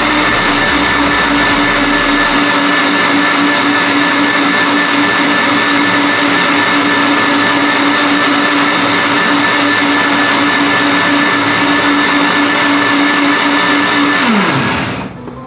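Countertop blender motor running at a steady high speed, blending tomatoes into juice. Near the end it is switched off and the motor winds down with a falling whine.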